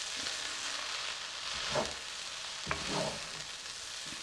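Rice noodles sizzling in a pot as they are tossed and stirred with a wooden spoon, with a steady hiss and a couple of louder strokes of the spoon about halfway through.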